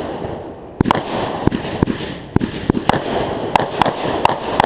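Fireworks going off: about a dozen sharp bangs at uneven intervals over a continuous hiss.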